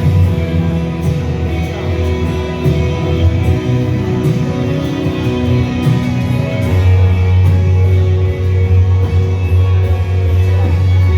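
Worship band music with guitar, a strong sustained bass and singing.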